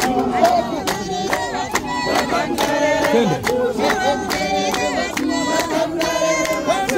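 A congregation of men and women singing a hymn together, kept to a steady beat of sharp hand claps about two to three a second.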